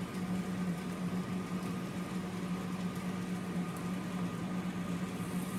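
A steady low hum with an even hiss underneath, unchanging throughout.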